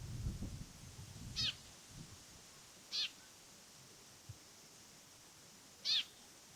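A bird giving three short, high mewing calls, the last near the end, with a low rumble in the first second.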